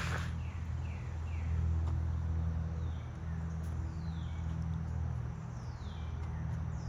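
Birds calling with short, high notes that fall in pitch, repeated every second or so, over a steady low rumble.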